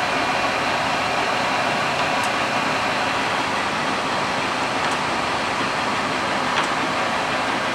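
Kingston HD-2690 engine lathe running with its carriage power feed engaged: a steady mechanical running noise from the spindle drive and gearbox, with a few faint clicks.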